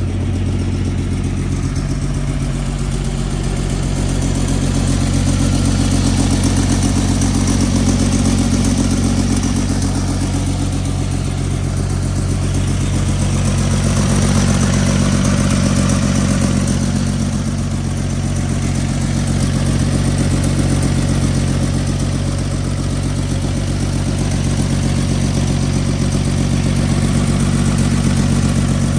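A 1949 Chevrolet 3600 pickup's 216 cubic-inch Thriftmaster inline six idling steadily, louder and softer in slow swells.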